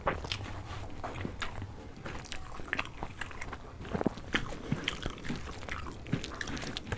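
Fingers mixing rice and crumbling crisp fried beguni on a banana leaf, close to the microphone: irregular sharp crunchy clicks, a few louder than the rest.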